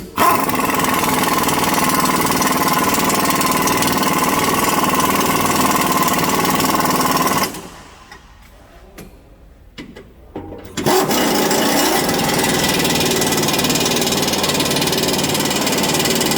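Impact wrench hammering as it tightens a rear shock absorber's mounting nut on a pickup truck. It runs twice, first for about seven seconds, then, after a pause of about three seconds, for another six seconds or so.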